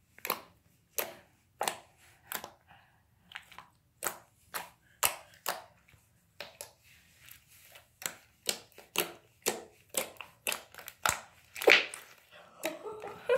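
Thick white slime being pressed, poked and stretched by hand, giving a run of sharp, wet pops and clicks, about one or two a second and coming faster in the second half.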